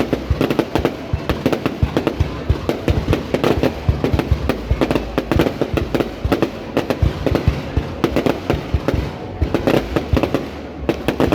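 Fireworks display going off in a dense barrage: many sharp bangs and crackling bursts a second, without a break.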